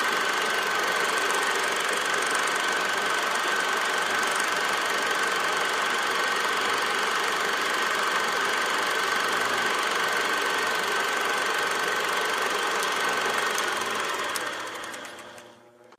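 Honda GX160 single-cylinder four-stroke engine running steadily as it drives a 1927 Ford Model T pickup along, with a steady high whine over the engine noise. The sound fades out over the last two seconds.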